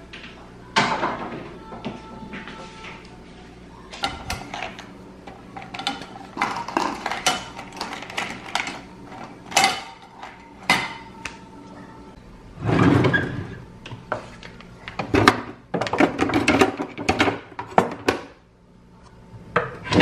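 Kitchen clatter: a cupboard door opening, utensils rattling and clinking as they are pulled from a plastic holder on a dish rack, and a cutlery drawer being opened. Many short knocks and clinks throughout, with longer, louder rattling stretches a little past the middle.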